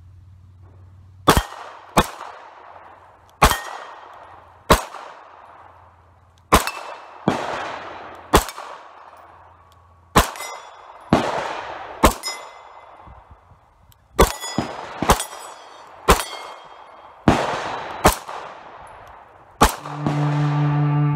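Pardini GT9 9 mm pistol firing about seventeen single shots at an uneven pace, some in quick pairs, each sharp crack followed by a long rolling echo. Music starts just before the end.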